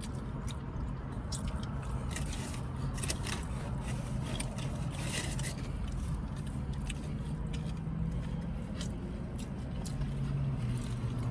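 Close-miked chewing of a soft loaded baked potato, with many small wet mouth clicks and smacks, over a steady low hum.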